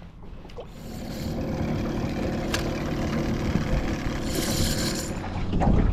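A motorboat engine drones steadily, growing louder about a second in. A brief hiss comes about four seconds in, and a low thump near the end is the loudest sound.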